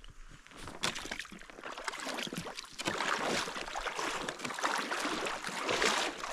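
Water sloshing and splashing around a person's legs as he wades through a shallow river, louder from about three seconds in.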